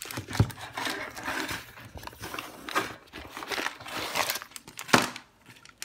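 Clear plastic bag and cardboard packaging rustling and crinkling as a multimeter is handled and unpacked, with two sharp knocks, one about half a second in and one near the end.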